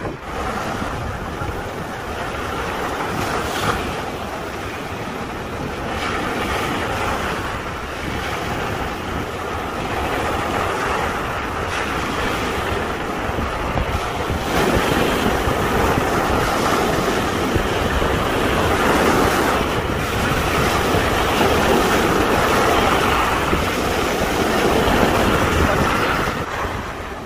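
Sea surf breaking and washing up the sand close by, with wind buffeting the microphone. The wash grows louder about halfway through.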